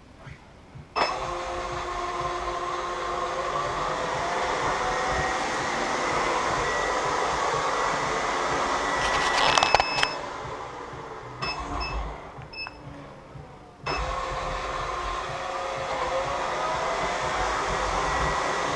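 Robot vacuum running, its motors whirring with tones that glide up and down; it starts about a second in, clatters loudly near ten seconds in as playing cards are pulled in and jam it, then stops. A few short beeps follow, and it starts up again at about fourteen seconds.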